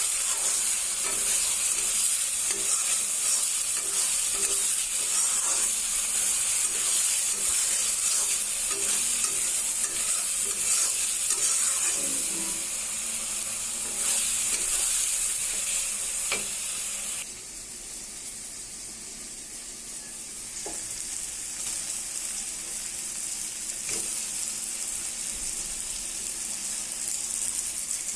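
Food sizzling as it fries in a cooking pan while a spoon stirs it, with small repeated knocks of the spoon through the first half. The sizzle drops suddenly about two-thirds of the way through, then builds back up.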